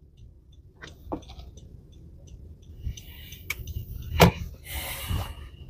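Low, steady rumble inside a moving car, with a few scattered clicks and a sharper knock about four seconds in, followed by a short hiss.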